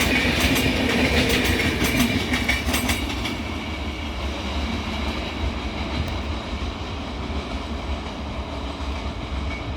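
Passenger coaches of an express train running past on the rails. The wheels clatter over the rail joints for the first three seconds, then the sound drops to a quieter, steady rumble.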